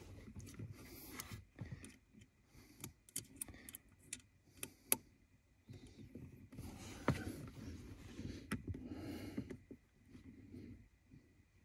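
Small metal clicks, knocks and scrapes of hands working the bolts of an aftermarket spacer on a car's throttle pedal, with rustling of movement about seven seconds in.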